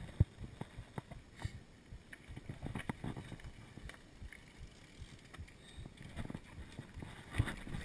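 Mountain bike rolling over a rough dirt singletrack: irregular knocks and rattles as the bike and camera jolt over bumps and roots, with one sharp knock just after the start.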